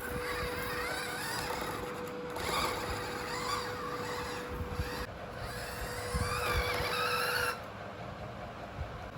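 Small electric motor and gearbox of an RC pickup truck whining, its pitch rising and falling with the throttle, then cutting off suddenly about two seconds before the end.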